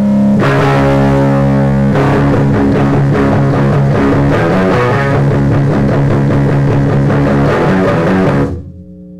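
Distorted electric guitar played loud through an amplifier, a strummed rock riff. It stops abruptly about eight and a half seconds in, leaving a quieter steady hum of held tones from the amp.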